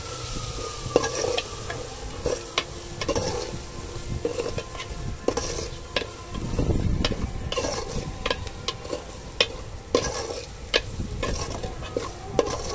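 A metal spoon stirring and scraping a spice masala frying in oil in an aluminium pot, with steady sizzling and frequent sharp clicks of the spoon against the pot. This is the bhuna stage, the onion-tomato masala and ground spices being fried well.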